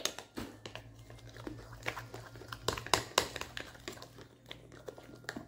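Thick muffin batter being stirred in a mixing bowl: irregular scrapes and clicks of the utensil against the bowl. A faint steady hum runs underneath.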